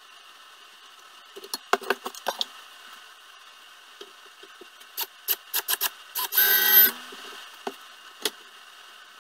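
Clicks and clanks of steel parts and tools being handled on a workbench, in two quick clusters, with a brief whir a little past the middle and two last clicks near the end.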